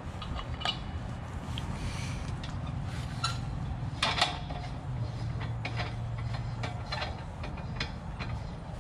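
Scattered metal clicks and clinks as a propane tank is unhooked from a travel trailer's tongue mount, with one louder clank about four seconds in, over a steady low hum.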